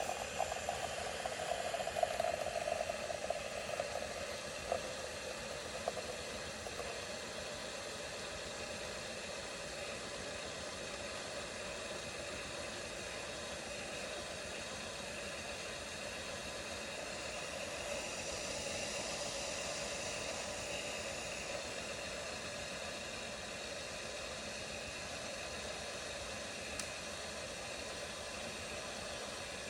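Zulay Magia super-automatic espresso machine frothing milk for a cappuccino: a steady hiss of steam, a little louder between about 18 and 21 seconds in.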